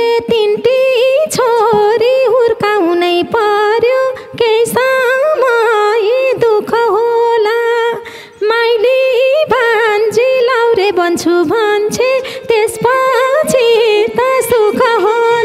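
A woman singing a Nepali teej dohori melody unaccompanied, the high voice bending and ornamenting each note, with short breaks between phrases.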